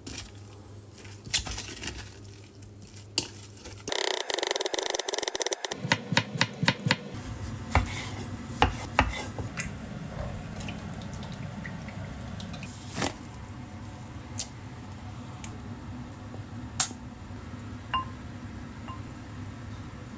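Kitchen work: dishes and utensils clinking and knocking now and then, with a few seconds of rapid, dense clatter about four seconds in.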